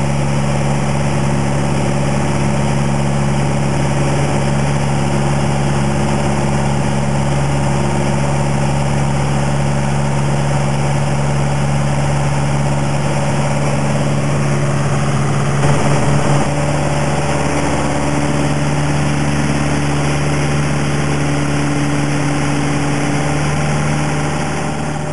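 Piper PA-28's piston engine and propeller running steadily in flight, heard inside the cockpit as an even drone. About two-thirds of the way through the sound briefly gets louder and shifts slightly in pitch, and it fades out at the very end.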